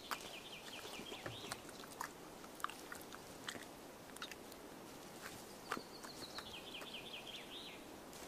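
Faint alpine meadow wildlife sounds: a chirping call that steps down in pitch, heard twice, over scattered soft clicks and crunches like an animal chewing.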